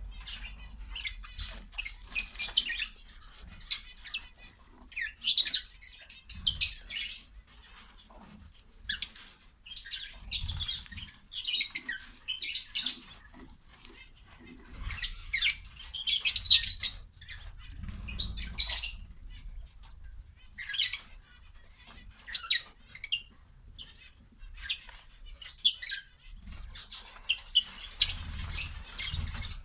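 Quail feeding on leafy greens and grain: repeated bursts of quick, sharp pecking and rustling ticks, a few seconds apart, with quieter gaps between.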